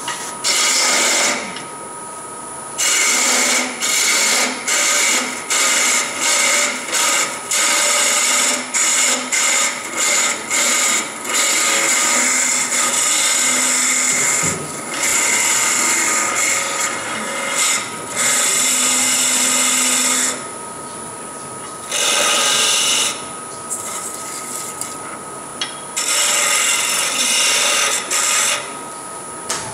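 Wood lathe running with a steady high whine while a turning tool cuts the spinning wood in loud bursts: a quick run of short cuts, then longer continuous cuts to smooth the piece.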